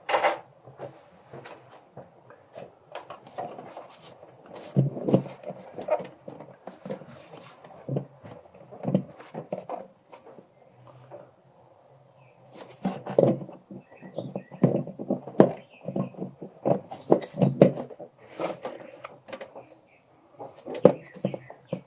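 Irregular clunks, knocks and rattles of an air cleaner housing being handled and worked loose on the engine, with a hose still attached at its back.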